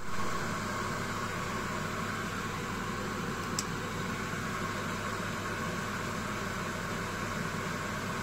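Steady electrical hum with a constant hiss, and one faint short tick about three and a half seconds in.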